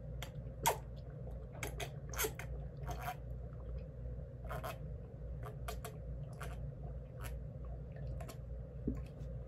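A person gulping a drink from a plastic cup: scattered short swallowing and wet mouth clicks, over a steady low hum.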